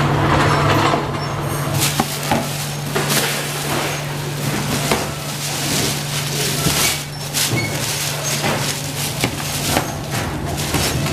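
Packing-floor noise: a steady low machine hum under irregular clinks and clatter of chrome wire kitchen racks being handled, with plastic bag rustling as a large clear bag is pulled over a rack.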